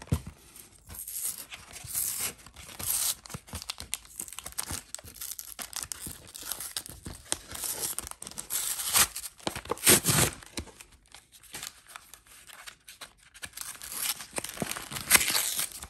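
Cardboard backing of a Pokémon TCG three-pack blister pack being torn and peeled open by hand, in irregular rips; the loudest come about nine and ten seconds in and again near the end.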